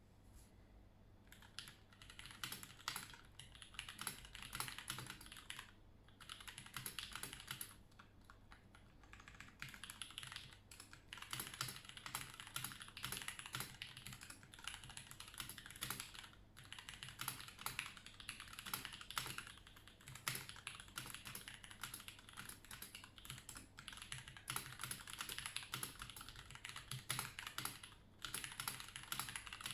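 Typing on a Red Scarf 96 mechanical keyboard with lubed Gateron Brown tactile switches and OG Cherry keycaps: a fast, continuous run of key presses starting about a second in, broken by a few short pauses.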